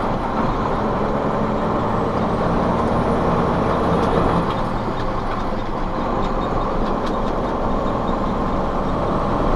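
Steady engine and road noise of a truck cruising at highway speed, heard from inside the cab, with a low engine hum that shifts about four and a half seconds in.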